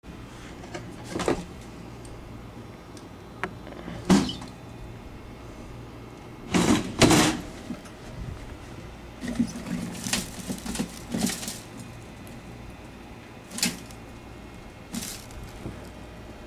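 A Sudan plated lizard catching and eating a brown anole: scattered knocks, scuffs and rustles, with a busier run of them about two-thirds of the way through, over a steady low hum.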